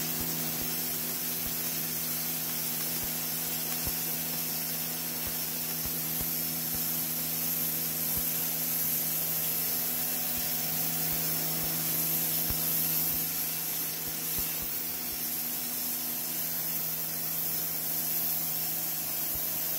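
Sun Joe electric pressure washer running steadily: the pump motor's hum under the hiss of a 0-degree jet blasting caked mud off a concrete floor.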